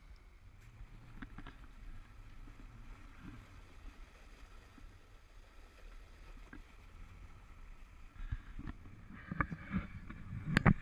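Caliber sailboat underway: water washing along the hull over a low, steady hum. Several sharp knocks and bumps come near the end.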